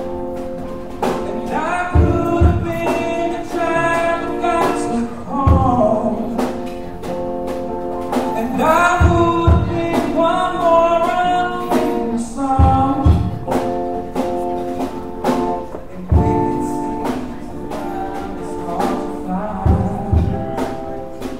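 A live band plays a slow soul/gospel-style song between sung verses. Held chords and regular drum hits sit under a melodic line that bends up and down in pitch.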